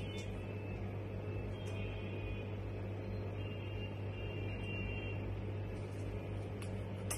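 Steady low mechanical hum in a small room, with a few faint light clicks.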